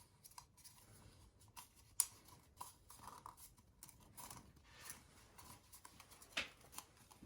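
Faint handling noises: soft rubbing and a few small clicks as a new oiled rubber seal is worked onto the oil filter's plastic housing cap, with the sharpest clicks about two seconds in and near the end.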